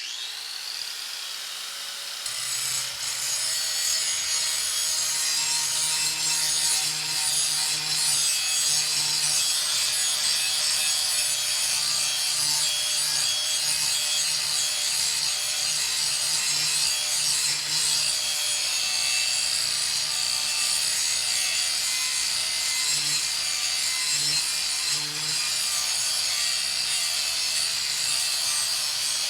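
Angle grinder spinning up with a rising whine, then grinding the cutting edge of a steel lawn mower blade: a steady high whine over a harsh rasping hiss that grows louder about two seconds in and runs on without a break.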